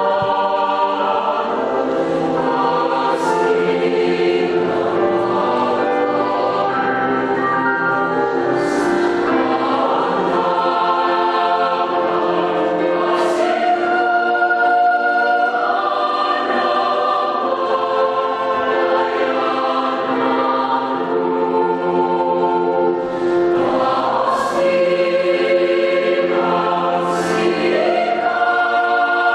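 Youth choir singing a hymn in several voice parts, moving between long held chords, with crisp s-sounds from the singers now and then.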